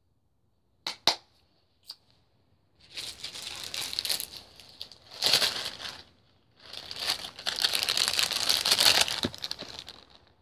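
Two sharp clicks, then a plastic bag crinkling and rustling as it is handled, in three stretches.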